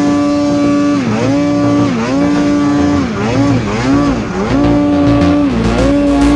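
Snowmobile engine running at high revs while riding through deep powder. Its pitch holds steady, then dips briefly and climbs back, about six times over the stretch.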